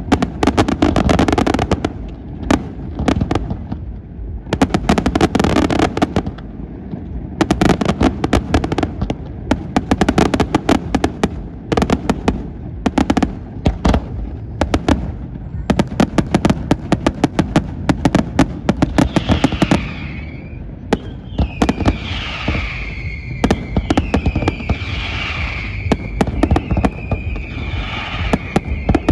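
Aerial fireworks display: rapid salvos of shell bursts, bangs and crackle going off in quick clusters. About two-thirds of the way through, repeated high whistles join in, each gliding down in pitch and then holding, over continuing bangs.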